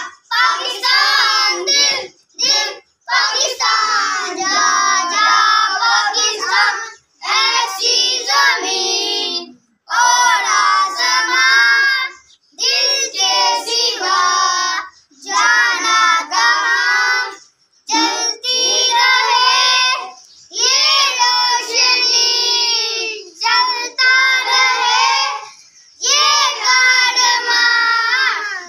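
A group of children singing a Pakistani patriotic song together, unaccompanied, in phrases of a few seconds with short breaks between them.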